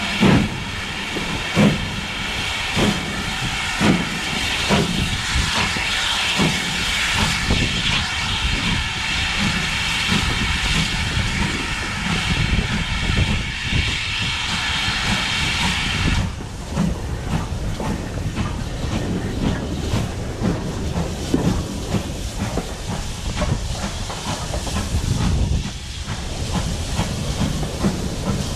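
Steam locomotive 7828 Odney Manor, a GWR Manor class 4-6-0, pulling away slowly, heard from the train behind its tender. Slow exhaust chuffs about one a second under a loud steam hiss, which cuts off suddenly about halfway through; after that, wheels rumbling and clicking over the track.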